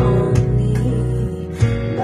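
A small band playing live: a strummed acoustic guitar with electric guitars and a deep bass line underneath. The low note changes about a second and a half in.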